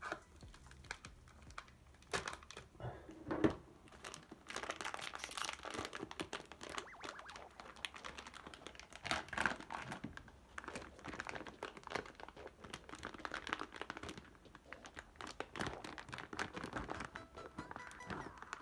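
Clear plastic vacuum-sealed bag crinkling and tearing as it is worked open. A few sharp crackles come first, then steady dense crinkling as hands pull the plastic apart around the bottles inside.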